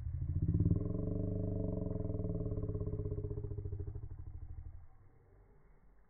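Gas chainsaw's two-stroke engine revving up, running steadily for a few seconds, then winding down and fading.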